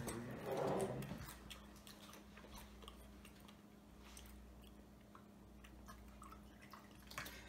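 Faint mouth and chewing sounds from a boy with a mouthful of hot sauce: a short muffled hum with the mouth closed in the first second, then scattered small clicks over a quiet room hum.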